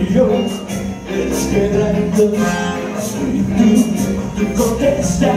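Live ska band playing, with trombone, shaken maracas and a regular percussion beat under a sung vocal line.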